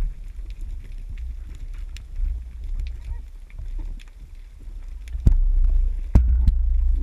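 Wind buffeting the microphone as an uneven low rumble, with faint scattered clicks and two sharp knocks about five and six seconds in.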